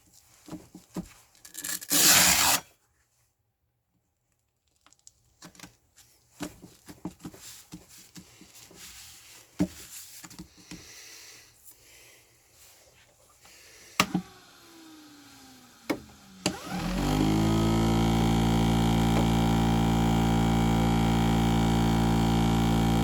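Clicks, knocks and a short scraping burst of parts being handled while the grinding machine's abrasive is changed to 1200 grit. About seventeen seconds in, the grinding machine's electric motor switches on and runs with a steady hum.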